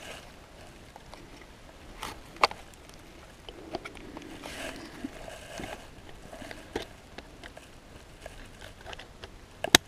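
Handling noise of a trail camera being strapped to a tree trunk: the strap and fleece sleeves rustle, with scattered clicks and taps. One sharp click comes about two and a half seconds in, and the loudest just before the end.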